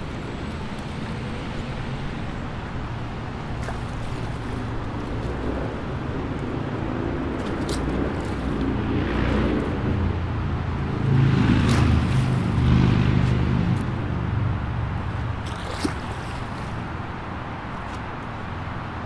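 Steady highway traffic noise, with one vehicle carrying a low engine note passing close: it builds over several seconds, is loudest about halfway through, then fades away.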